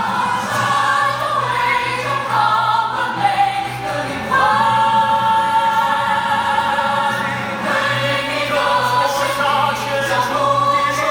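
Live musical-theatre song with several voices singing together over musical accompaniment; about four seconds in they hold one long note for a few seconds before the melody moves on.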